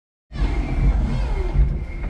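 5-ton electric forklift truck running: a low rumble under a steady high whine, with a tone sliding down in pitch during the first second. The sound cuts in suddenly just after the start.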